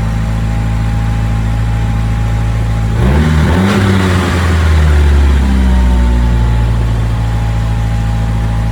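2.3-litre turbocharged four-cylinder engine idling. About three seconds in, with the idle air control plugged in, the engine note dips and wavers and runs heavier for a few seconds, then settles back to a steady idle. It is an engine with an erratic idle and occasional misfires, which the owner blames on the mass airflow sensor.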